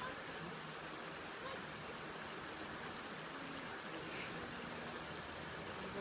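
Steady rush of flowing water from the river and Steall Waterfalls, an even hiss with no breaks.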